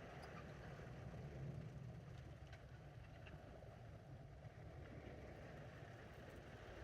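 Faint steady low rumble of outdoor ambience, with a few faint clicks scattered through it.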